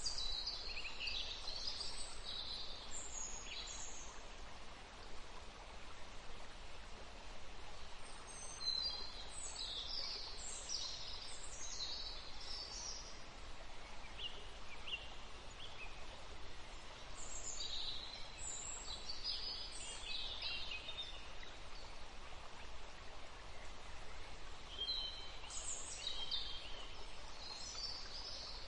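Forest ambience: several birds chirping and warbling in high bursts that come and go every few seconds, over a steady hiss of background noise.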